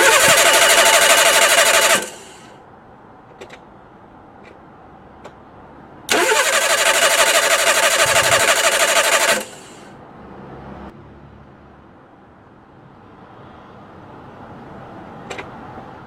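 An engine being cranked by its starter twice, for about two seconds and then about three seconds, without catching. Each attempt starts abruptly with a rising whine and cuts off suddenly, and a few faint clicks fall in between.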